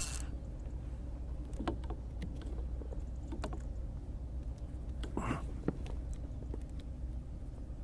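Fixed-spool spinning reel being wound in under the load of a string of hooked mackerel: light, irregular clicking. A couple of short grunts from the angler.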